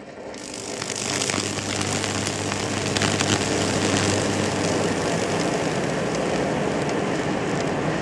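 High-voltage arc from a microwave-oven transformer at about 2000 volts, burning through a tree branch at the wire contacts. It is a loud, steady buzzing hum with crackling sizzle, and it builds up over the first second.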